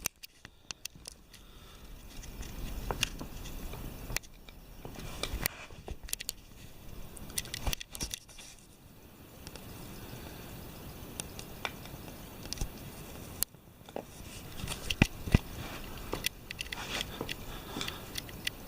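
Scattered clicks, taps and light crunchy scraping from handling an iPad and its cracked glass screen.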